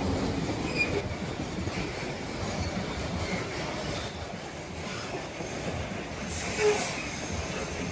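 Coal freight train rolling along the track: a steady rumble of wheels on rails, with one brief louder sound near the end.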